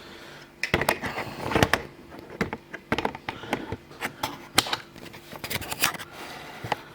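Handling noise of a camera being fitted back onto a tripod: a string of irregular clicks, knocks and rubbing, over a faint steady hum.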